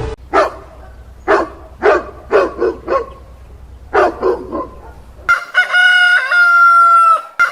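A chicken clucking in a run of short calls, then a rooster crowing: one long loud crow starting about five seconds in.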